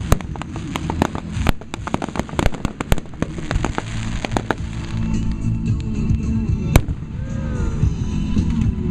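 Fireworks going off: a rapid string of sharp crackling bangs over a low rumble, thinning after about four seconds to scattered single bangs.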